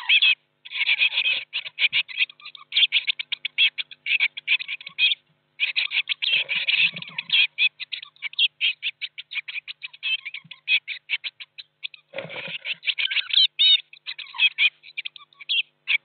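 Blue tit nestlings begging inside a nest box: a dense, rapid stream of high cheeping calls from many chicks at once, with brief pauses. A few low bumps and scuffles come from movement in the box about six and twelve seconds in.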